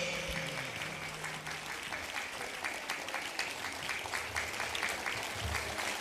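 Audience applauding, a dense steady patter of clapping, while a low ringing note left from the music's final strike fades out in the first two seconds.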